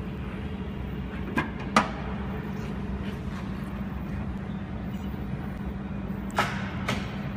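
Desktop jewelry laser welding machine running with a steady hum, broken by sharp clicks: two about a second and a half in, the second one the loudest, and two more near the end.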